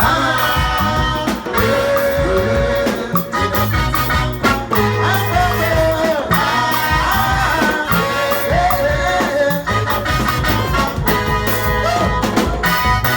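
A band playing upbeat dance music, with a lead singer over bass, guitar and drums keeping a steady beat.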